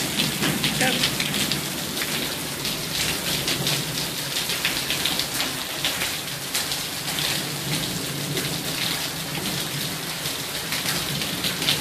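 Heavy rain falling steadily on pavement and lawns, a dense even hiss sprinkled with the sharp ticks of single drops close by.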